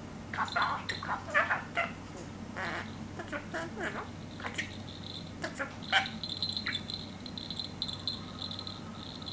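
Budgerigar chattering in short chirps for the first few seconds, then a few sharp clicks and a steady light jingle from about six seconds in as it pecks at a hanging strawberry-shaped toy.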